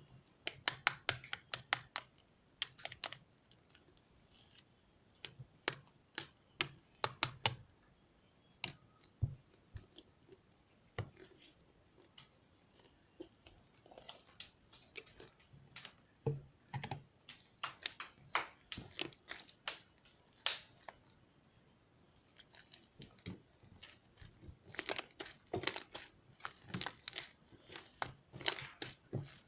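Irregular runs of short, sharp clicks and crinkles, bunched in quick clusters with pauses between them.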